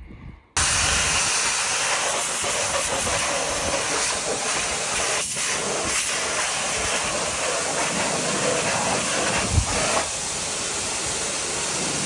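Pressure washer lance spraying a high-pressure water jet onto a combine harvester's engine and belt pulleys: a steady, loud hiss that starts abruptly about half a second in, with a short thump near the end.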